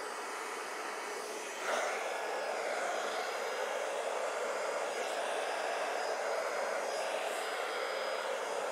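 Handheld hair dryer blowing steadily, getting louder about two seconds in.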